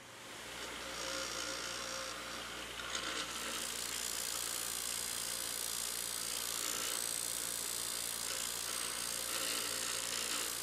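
Bench grinder with a fine Scotch-Brite (non-woven) deburring wheel running: a steady motor hum under a hiss, rising over the first second. A cold-rolled mild steel part is held against the spinning wheel, which is brushing its surface to a fine finish.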